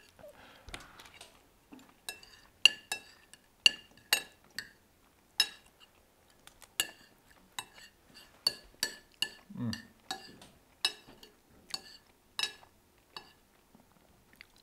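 Metal spoons and forks clinking and tapping against ceramic plates and a bowl while eating: a run of irregular, sharp clinks, many with a brief ring, getting busier about two seconds in.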